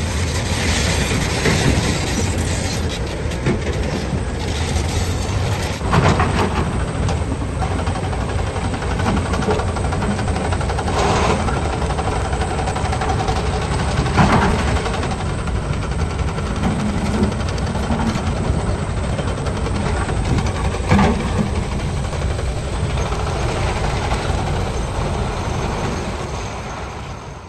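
Heavy diesel engines of a Hyundai 220LC excavator and a dump truck running steadily under load. Several sharp clatters of broken rock are heard as the excavator bucket digs and loads. The sound fades out near the end.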